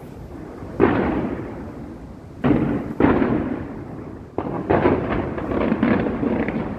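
Aerial fireworks shells bursting overhead in separate booms, each dying away in a rumble. In the second half they give way to a quick cluster of bangs and crackle.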